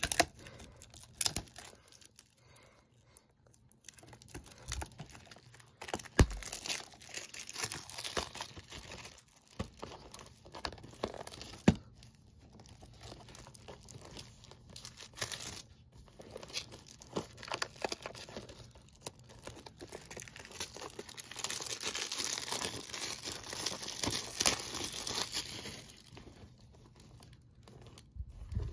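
Clear plastic shrink wrap being torn and peeled off a 4K Ultra HD Blu-ray case, crinkling in fits and starts with a few sharp clicks, most steadily over the last third.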